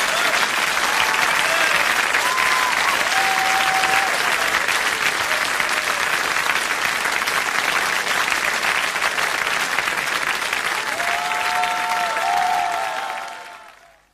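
A concert audience applauding steadily, then fading out over the last second or so.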